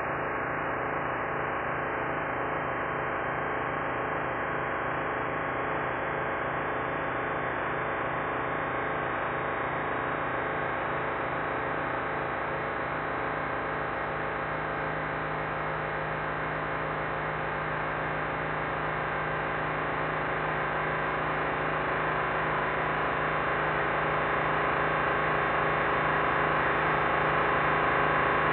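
Dense electronic drone generated by a MaxMSP patch that sonifies a live video feed of the painting: many layered steady tones with a faint pulsing underneath. The upper range of the sound opens up gradually over the first dozen seconds, and it grows a little louder near the end.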